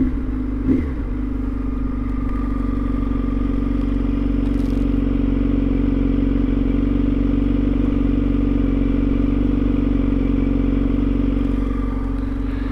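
2021 Kawasaki Z900's inline-four engine idling steadily, with a weird rattling noise coming from the bike that doesn't sound right to the owner.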